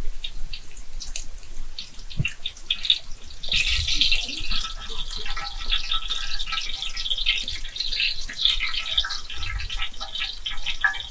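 Cold-pressed sesame oil poured into a hot pan, then sizzling and crackling as it heats. The crackle grows dense from about three and a half seconds in.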